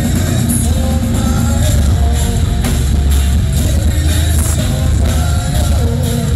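A heavy rock band playing live and loud: drums, bass and distorted electric guitar under a singer's vocals.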